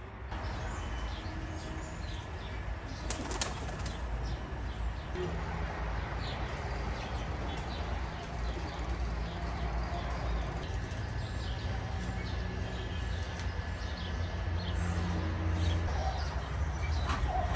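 Doves' wings flapping and small birds chirping in short bursts, over a steady low rumble of wind on the microphone.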